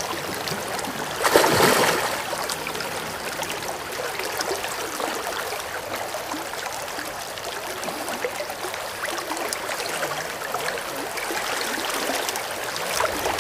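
Shallow river current running steadily over a riffle, with a brief louder rush a little over a second in.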